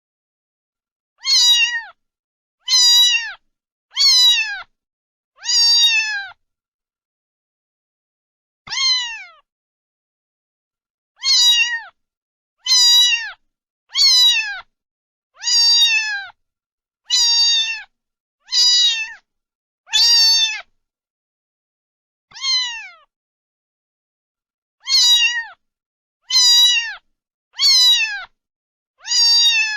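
A domestic cat meowing over and over, about seventeen short meows spaced a second or two apart, each one falling in pitch.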